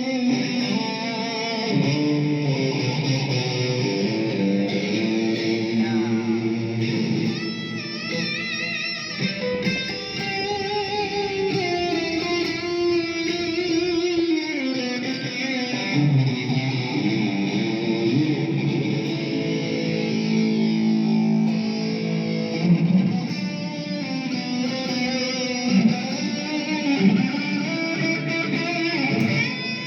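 Stratocaster-style electric guitar played continuously, mixing chords and single-note lines, with wavering vibrato on some held notes.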